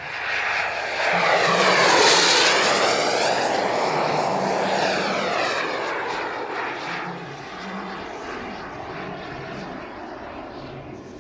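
Jet turbine of a large-scale radio-controlled F-104 Starfighter model in a fast flypast. The turbine's rushing roar and high whine swell quickly and are loudest about two seconds in, where the whine drops in pitch as the jet passes. It then fades as the jet climbs away.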